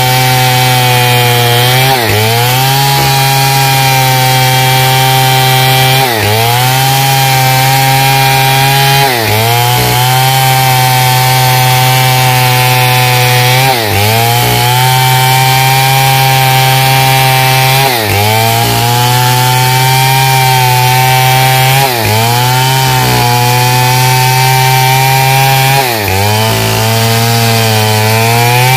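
Stihl 070 two-stroke chainsaw running at high revs as it rips a pine log lengthwise. Its engine pitch dips briefly and recovers every few seconds.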